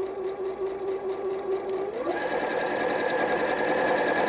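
Janome 3160 computerised sewing machine running a straight seam, a steady whirring hum. About two seconds in it speeds up, rising in pitch and getting a little louder, then holds at the faster speed.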